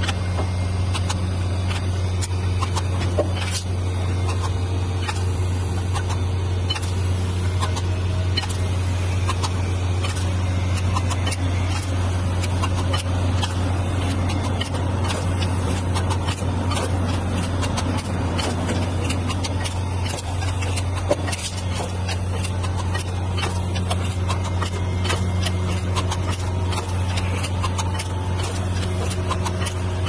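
Automatic glass-syringe filling and plugging machine running: a steady low hum with frequent light clicks and taps from the mechanism.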